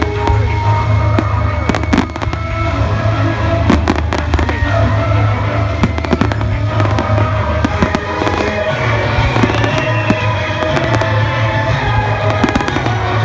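Aerial fireworks going off in many sharp bangs and crackles, in clusters, over loud music with a steady bass line.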